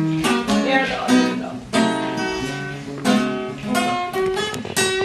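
Acoustic guitar strummed, playing the opening chords of a song, with the chords ringing between strums.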